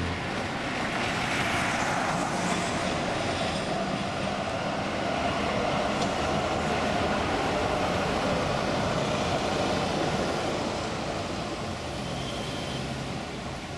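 City trams running past on street rails: a steady rumble and rush of steel wheels on track mixed with road traffic, fading over the last few seconds as the trams move away.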